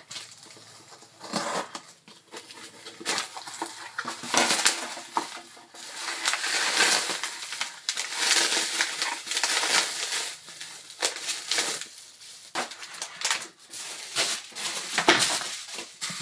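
Plastic packaging and bubble wrap crinkling and rustling as they are handled and unwrapped by hand, with many irregular sharp crackles.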